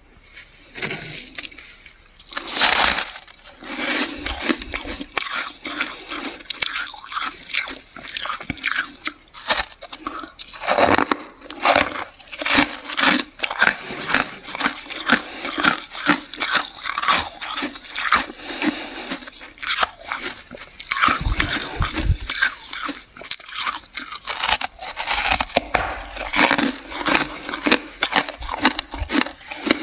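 Close-up crunching of dry, flaky freezer frost being bitten and chewed, a quick run of crisp crunches several to the second, with brief pauses.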